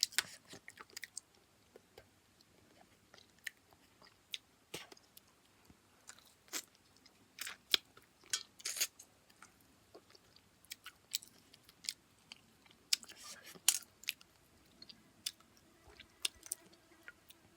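A person chewing food, with scattered irregular crunches and mouth clicks.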